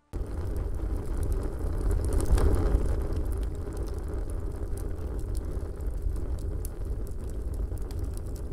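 Fire sound effect: a steady rumble of burning flames with crackles all through, swelling a little about two seconds in.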